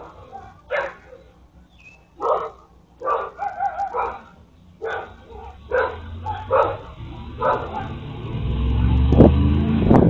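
Dog barking repeatedly in short barks. From about six seconds in, a vehicle's low engine rumble builds, loudest near the end as it comes close.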